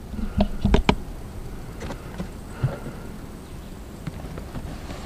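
Plastic storage drawers and stacked paper plates being handled: a few sharp plastic clacks in the first second, then a couple of lighter knocks and faint rustling.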